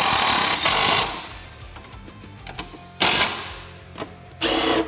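Cordless impact driver rattling as it drives a self-tapping screw home, stopping about a second in. Two more short bursts of the driver come near the middle and just before the end. Background music with a low steady beat runs underneath.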